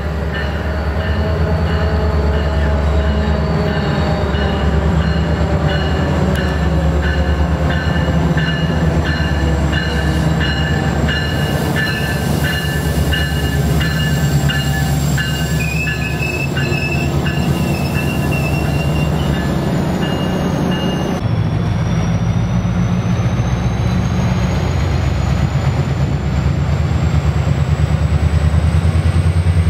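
Metrolink diesel passenger trains: a locomotive's steady engine drone passing close, with high squealing from the wheels and a run of clickety-clack from rail joints midway. After a sudden cut about two-thirds through, another diesel locomotive drones in, growing louder near the end.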